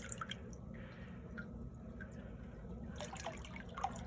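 Water dripping and trickling in a running indoor pond sump filter: scattered small plinks over a steady low pump hum, with a louder drop near the end.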